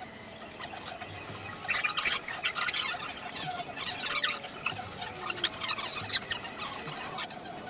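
Rapid clicking, clinking and short squeaks of metal hand tools as someone works under the front of the car, starting about two seconds in and thinning out toward the end.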